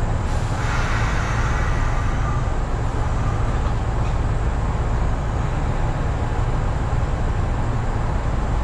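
Steady low hum inside the cab of a Kintetsu electric train standing at a platform, from its onboard equipment running while the train is stopped. A higher hiss comes in about half a second in and fades out a couple of seconds later.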